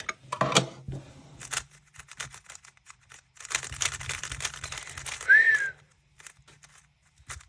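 Plastic cube case being opened and a GAN 356 Maglev speed cube handled: scattered sharp clicks, then a few seconds of dense crackling and rustling, with a short squeak near the end.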